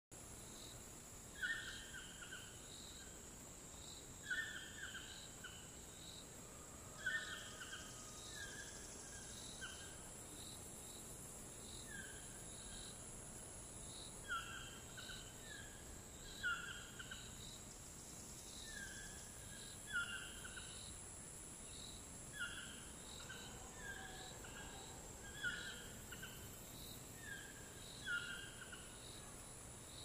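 A toucan calling over and over, a short yelping phrase of two or three notes about every three seconds, over a steady high-pitched drone of cicadas.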